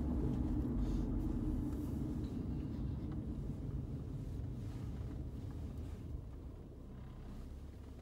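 Low road and engine rumble heard from inside a moving car, fading as the car slows in traffic.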